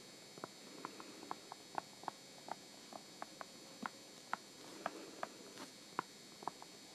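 Faint, irregular ticking of a stylus tip tapping and dragging on a tablet screen during handwriting, about three small clicks a second.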